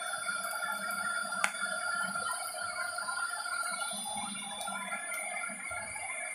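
Fish steaks frying on an iron griddle under a hot-air heat gun: a steady electric whine and hum with light sizzling and spitting crackles. There is one sharp click about a second and a half in.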